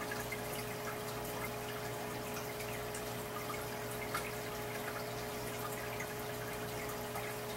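Water trickling and dripping into a turtle tank: many small, irregular droplet plinks over a steady low hum.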